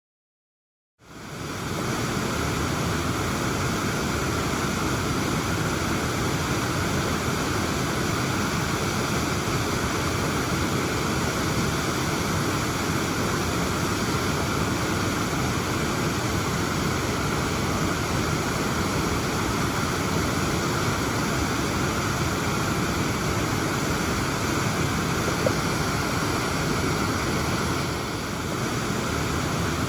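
Waterfall cascading steadily, a constant rushing roar of falling water; it fades in about a second in from silence.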